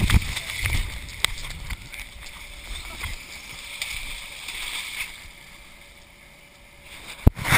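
Water splashing and rushing as a person slides down a wet inflatable slip 'n slide into a muddy pool, starting with a loud thump and fading over the second half. There is a sharp knock near the end.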